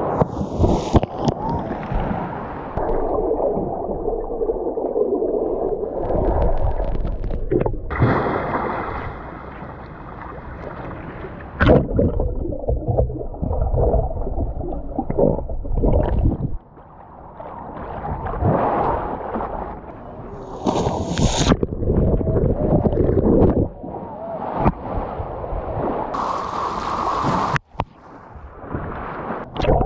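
Asian elephant splashing and thrashing in a deep pool, water churning and sloshing, alternating with muffled underwater gurgling and bubbling, with several abrupt changes in the sound.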